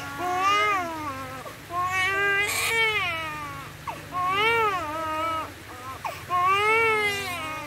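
Young infant crying hard: about four long wails, each rising and then falling in pitch, with short breaths between them.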